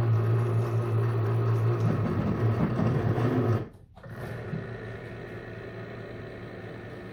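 900-watt brushless servo motor driving the mini mill's spindle at low speed while an M8 tap cuts into aluminium: a steady motor hum. About three and a half seconds in it stops briefly as the motor is reversed, then hums on more quietly as the tap backs out of the hole.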